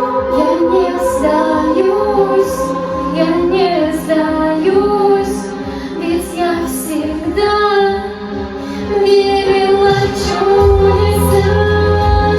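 A girl singing a synthwave pop song over held synthesizer chords; a deep bass line comes back in about ten seconds in.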